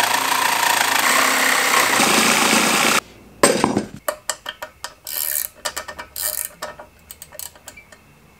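Makita reciprocating saw cutting through a turbocharger's cast-iron hot-side (turbine) housing, which cuts off abruptly about three seconds in. Then a wrench clicks and clinks lightly on the nuts holding the turbo flange to the exhaust manifold.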